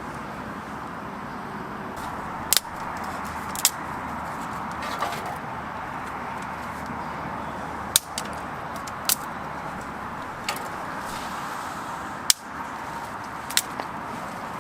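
Campfire of split firewood burning: a steady hiss broken by irregular sharp crackles and pops, about six of them loud snaps.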